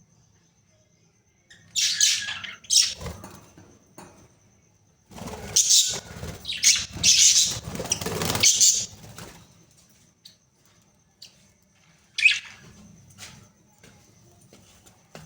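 Pet budgerigars in bursts of harsh, scratchy squawking and chatter: a short bout about two seconds in, a longer one from about five to nine seconds, and a single sharp call near twelve seconds.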